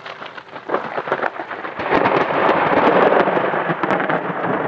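Close thunder from a supercell thunderstorm: a crackling peal that builds over about two seconds into a loud rolling rumble and begins to fade near the end.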